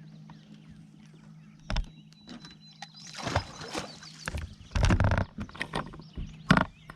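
A boat's motor hums steadily while knocks, bumps and scuffs of handling on the boat sound over it, with a loud thump about five seconds in and a sharp knock near the end.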